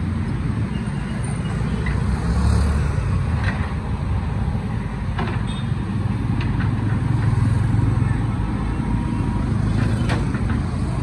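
JCB backhoe loader's diesel engine running steadily while its bucket digs silt and rubbish from a riverbed. A few sharp knocks come about three and a half, five and ten seconds in.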